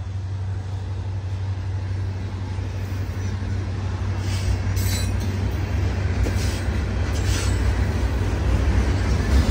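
Freight train of open-top hopper cars rolling past, a steady rumble and rattle of wheels on the rails that grows louder toward the end. A few brief high-pitched wheel noises come through around the middle.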